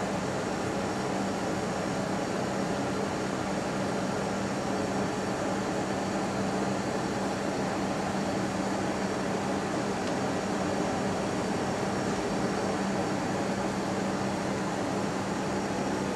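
Steady hiss with a constant low hum, with no change in level or pitch.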